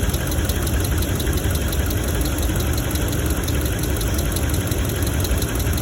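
2017 Ram 1500's 5.7-litre Hemi V8 idling steadily with a fast tick and a deeper knock under it. The mechanic takes these for lifter tick, which he links to a misfire, and piston noise.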